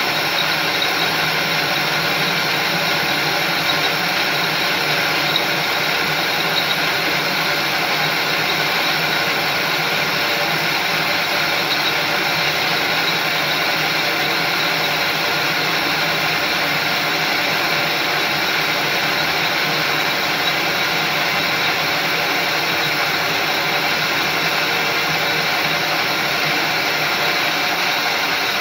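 Metal lathe running with its chuck spinning a steel bar: a steady mechanical drone with a constant whine of several tones from the drive and gears.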